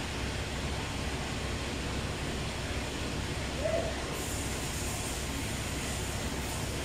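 Steady low mechanical hum with hiss, the background noise of a workshop, with one brief faint chirp a little past halfway.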